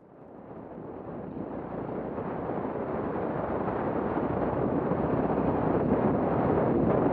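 Wind noise on the microphone of a camera on a moving motorcycle, over the running of the bike's engine and its tyres on a dirt road. It swells up out of silence over the first few seconds and then holds steady.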